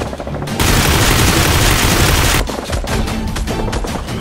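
Rapid gunfire sound effects over action background music, with a loud rushing blast of noise from about half a second in that lasts about two seconds.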